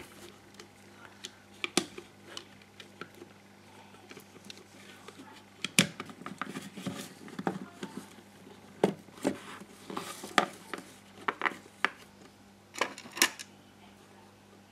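Irregular plastic clicks and knocks from a GHD 5.0 hair straightener's plastic arm housing being handled and pressed together by hand.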